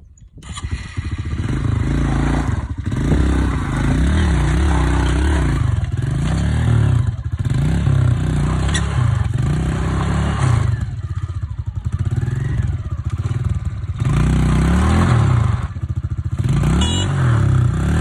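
Honda CRF125 dirt bike's single-cylinder four-stroke engine revving up and down under load as the bike is worked up a rocky slope, the throttle rolled off briefly several times. The engine sound comes in suddenly about half a second in.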